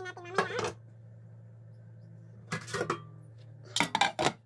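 Glass pot lid with a metal rim clinking and knocking against the rim of a wok as it is put on and adjusted, in three short bursts: at the start, around two and a half seconds in, and near the end. A steady low hum runs underneath.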